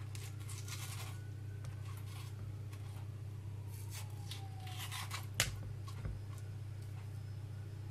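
Metal spoon scraping aloe vera gel off the inside of a peeled leaf: a run of short, uneven scrapes, with one sharper knock about five seconds in.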